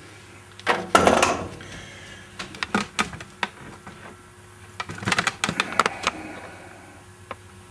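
Scattered sharp clicks, knocks and clinks of metal hand tools being handled between grinding passes. There is a cluster about a second in and another around five to six seconds.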